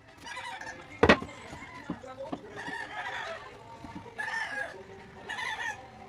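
Chickens clucking in several short calls, with one sharp knock about a second in, the loudest sound, and a couple of lighter knocks shortly after.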